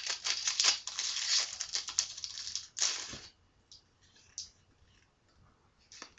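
Foil Yu-Gi-Oh booster pack wrapper crinkling and tearing for about three seconds, then a few faint light ticks of cards being handled.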